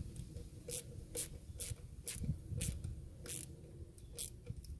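Ratchet and 7 mm socket tightening a worm-drive hose clamp on a coolant hose, a series of short sharp clicks about two a second.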